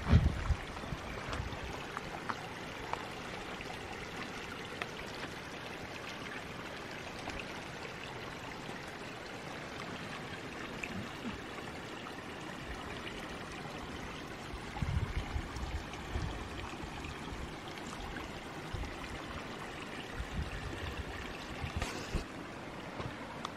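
A creek running steadily. A few low thumps come through, a cluster of them a little past halfway.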